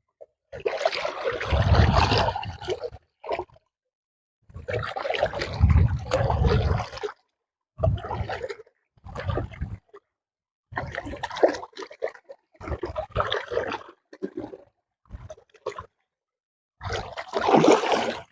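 Water splashing and sloshing in repeated bursts of one to three seconds, with short silent gaps between them.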